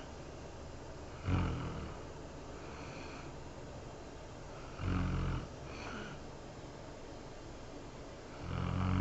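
A sleeping woman snoring. There are three loud snores about three and a half seconds apart, each lasting about half a second, with fainter breaths between them.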